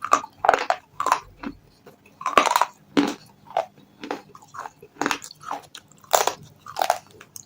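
Close-miked mouth crunching: hard, brittle pieces bitten and chewed in a steady run of crisp crunches, about two a second.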